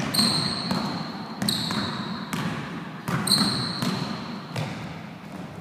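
A basketball dribbled on a gym floor, about one bounce every three-quarters of a second, as the player works through a cone drill. Three high sneaker squeaks, each about a second long, come as the player plants a foot to change direction.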